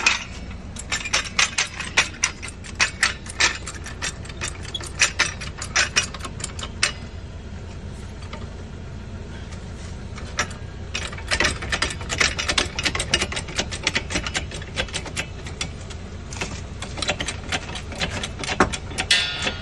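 A car jack being worked to lift a car: rapid metallic clicking and clanking in two spells with a short pause between them, over a steady low hum.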